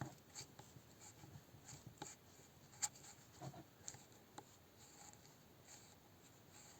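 Near silence with faint, scattered light clicks and rubbing of metal parts as a finger rocks the side gear inside the Lada Niva transfer case's centre differential. The gear has a large axial play, a sign that its 1.85 mm shim is too thin.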